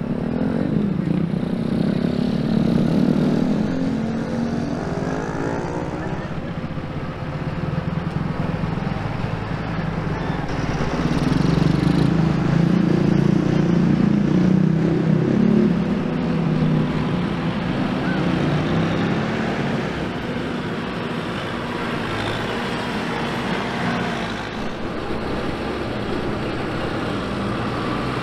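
Farm tractors driving past one after another, their diesel engines running with a steady low drone. The sound swells to its loudest about halfway through as one passes close.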